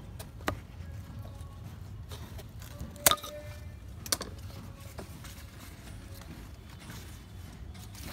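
Several sharp clicks and knocks from handling the plant and tools during the harvest, over a low steady hum. The loudest comes about three seconds in and rings briefly.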